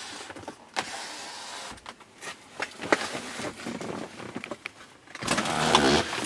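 Handling noises inside a car cabin: a few sharp clicks and some rustling of the interior trim, then a louder rubbing, rushing noise for about a second near the end.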